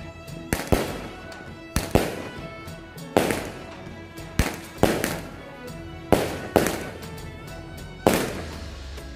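Aerial fireworks bursting overhead: a sharp bang about once a second, some in quick pairs, each with a short fading tail, over background music.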